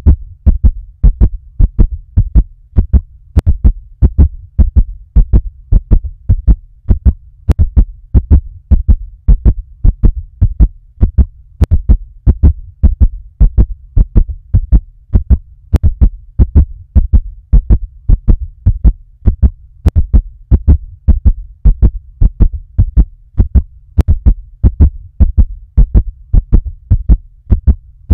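Fast heartbeat sound effect: an even run of doubled thumps, th-thump, th-thump, over a steady low hum. A faint click recurs about every four seconds.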